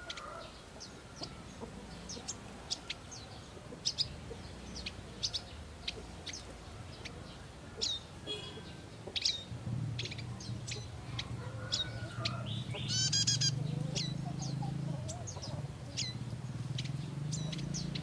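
Prinias (prenjak) giving many short, sharp high chirps at irregular intervals, with a rapid trill about two-thirds of the way through. A low steady hum comes in about halfway through.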